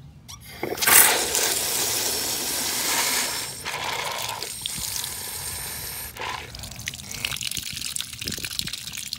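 Water rushing into a water balloon as it is filled, spraying and splashing out around the balloon. It comes on suddenly about a second in, is loudest for the next few seconds, then runs more quietly.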